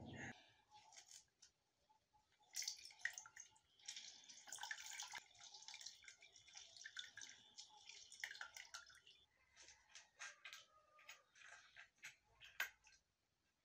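Halved green citrus fruit squeezed by hand over a bowl: quiet wet squelching and dripping juice with small clicks. Near the end a metal spoon scrapes passion fruit pulp from its shell into the juice.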